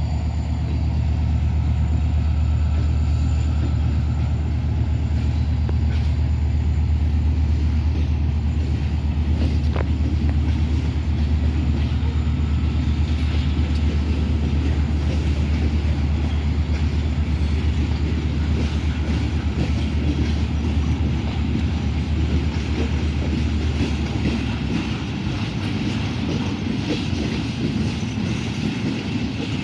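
Freight train rolling past: a steady low diesel locomotive rumble with the rattle of wheels on rail building through the middle, the engine rumble dropping away near the end.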